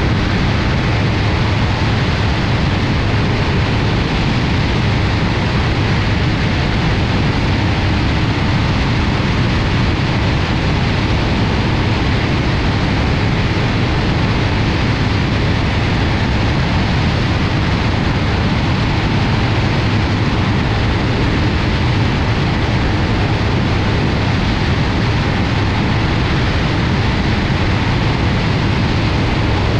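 BRM Citius ultralight aeroplane in steady flight: wind rushing over a wing-mounted camera, with the low, even drone of the propeller engine underneath.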